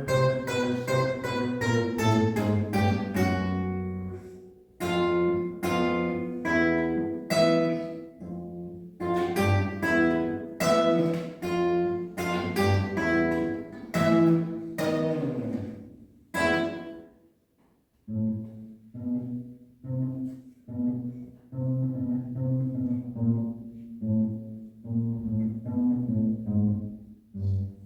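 Instrumental music played live: a run of struck, ringing notes that die away, then after a short break about two-thirds of the way through, softer, lower notes repeated at an even pace.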